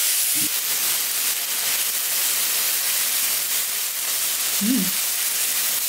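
Pieces of beef steak searing on a hot electric teppanyaki flat griddle: a steady sizzle.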